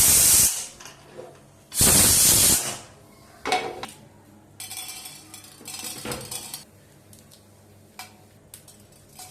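Kitchen clatter: utensils and dishes clinking and knocking, with a loud burst of hiss about two seconds in and softer hissing in the middle.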